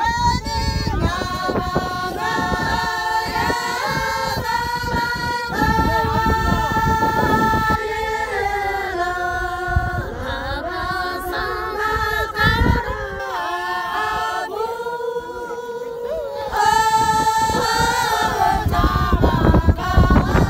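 A group of women singing together in unison: a slow song with notes held for about a second each, the tune stepping up and down.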